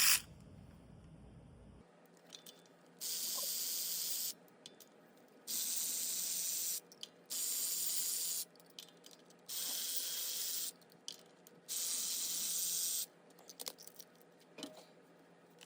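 Aerosol spray can hissing in five separate bursts of about a second each, with light clicks and handling noise between them.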